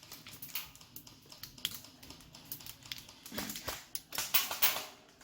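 Airsoft guns firing during a game: a steady run of irregular sharp clicks and snaps, coming thicker in the second half.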